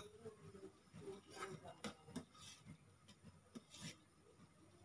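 Faint, scattered scraping and light ticks of a steel spoon stirring curdling milk in a stainless steel pot, with the milk splitting into paneer curds.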